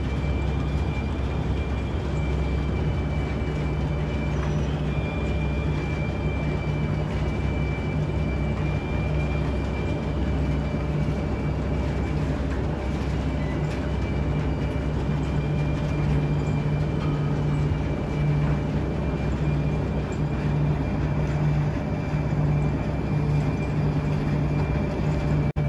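Bucket-wheel excavator and its conveyor running: a steady low rumble and hum with a thin high whine over it.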